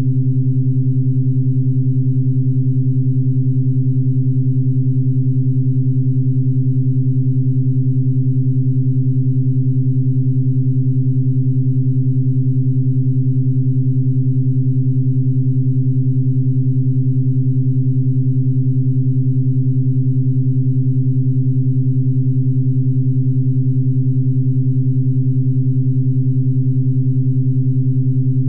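A steady, deep synthesized drone with a few fainter higher overtones, holding one unchanging pitch and loudness throughout.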